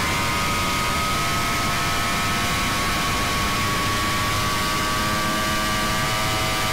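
Performance catamaran powerboat running flat out and accelerating from about 80 to over 90 mph: a steady engine whine of several tones over heavy wind rush.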